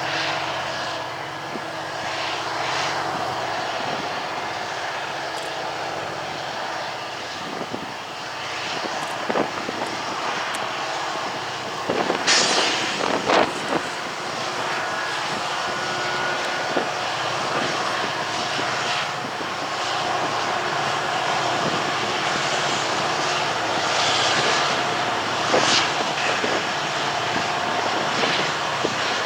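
Union Pacific SD70M diesel-electric locomotive, its EMD 16-710 two-stroke V16, running steadily under heavy load as it starts a manifest train up the grade. A few sharp knocks cut through, the loudest about twelve to fourteen seconds in.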